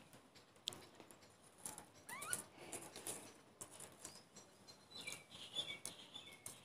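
Faint outdoor ambience with scattered small clicks and taps, a short rising chirp about two seconds in, and faint high warbling chirps in the second half.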